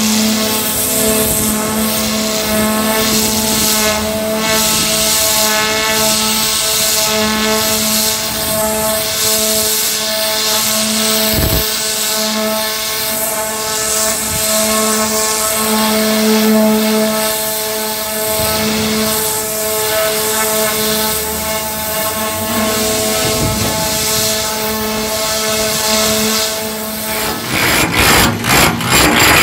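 High-pressure water blaster running steadily, its engine-driven pump humming and the jet hissing as it strips rust and old paint off a ship's steel deck. Near the end it gives way to the rapid hammering of a pneumatic chipping hammer on the steel deck.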